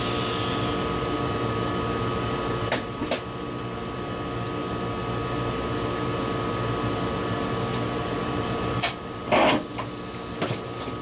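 Steady electrical hum with several constant whining tones inside an ICE high-speed train's driver's cab, with a high hiss that dies away in the first moment. Two sharp clicks come about three seconds in, and a short louder burst of noise comes near the end.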